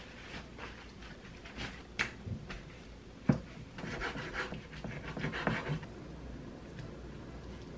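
Chinese cleaver cutting beef into chunks on a camphor-wood cutting board: a sharp knock about two seconds in, a louder, heavier knock a second later, then a run of softer chops and scrapes as the pieces are cut and pushed together. A paper towel rustles at the start.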